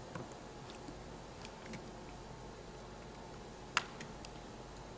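Quiet room tone with a few faint small clicks, one sharper tick about three-quarters of the way through.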